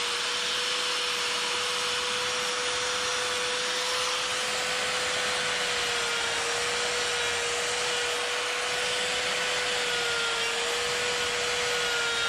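Electric die grinder with a flame burr running at high speed and grinding into wood: a steady high whine over a hissing grind. The pitch sags slightly twice as the burr bites under load.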